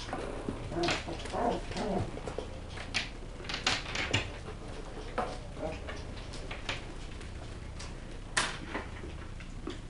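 West Highland White Terrier puppies playing on a wooden floor: scattered sharp clicks and knocks of paws and claws, with soft puppy vocalizing about one to two seconds in.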